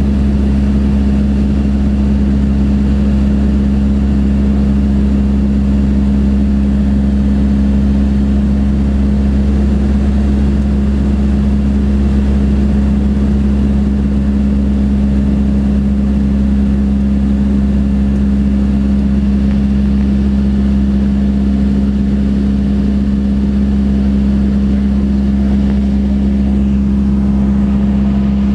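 Steady drone of a single-engine light airplane's piston engine and propeller in flight: one strong steady hum over a deep rumble, with airflow hiss above, unchanging throughout.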